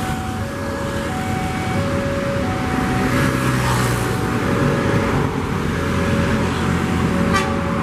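Railway level crossing warning alarm sounding two alternating tones, a new note about every 0.6 s, over the low rumble of an approaching electric commuter train (KRL i9000).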